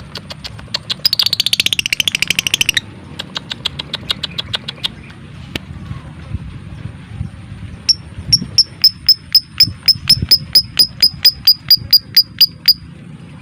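Lovebird calling: a fast, dense chattering trill of about two seconds, then scattered single ticks, then a run of sharp high chirps at about five a second for nearly five seconds: the 'ngetik' ticking and 'ngekek' chattering calls that keepers use to stir other lovebirds into song.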